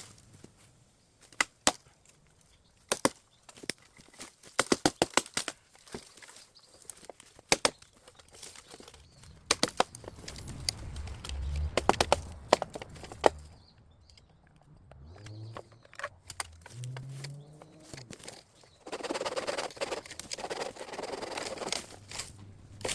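Nata (Japanese hatchet-machete) chopping bamboo: sharp wooden knocks, some single and some in quick runs of several strokes. Near the end a few seconds of steady rasping, rustling noise.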